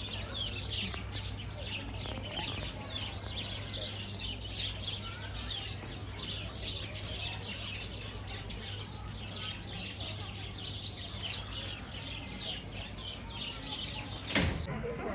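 Many small birds chirping busily, with a steady low hum underneath. A single sudden knock near the end.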